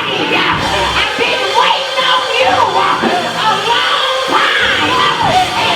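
Music playing with excited shouting voices over it: a congregation's praise break during a church service.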